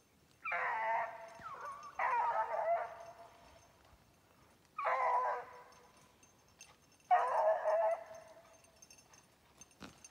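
Rabbit-hunting dog barking four times, a couple of seconds apart, each bark drawn out into a short trailing howl, while it hunts a rabbit in the briars.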